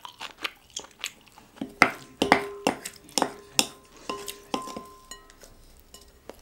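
A spoon knocking and scraping in a bowl, several knocks leaving the bowl ringing briefly, amid close-up chewing and eating sounds.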